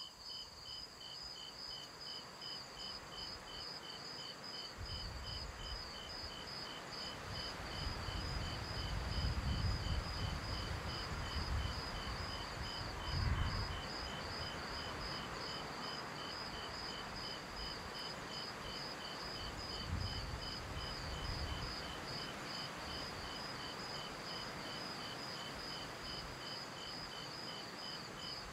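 Crickets chirping in a steady, even rhythm of about four chirps a second, high-pitched, as a rural night-time ambience. Soft low rumbling swells come and go under them through the middle.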